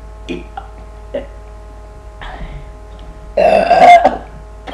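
A person burping once, loud and drawn out to nearly a second, about three and a half seconds in.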